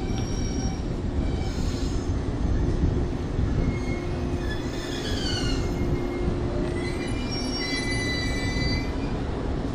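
Shinano Railway 115-series electric train pulling slowly into the station, its wheels and brakes squealing in high tones several times over the train's steady rumble. The squeal about halfway through falls in pitch.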